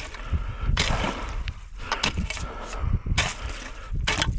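Several sharp knocks and crunches of ice and snow as a trap pole is worked in a frozen-over hole in pond ice.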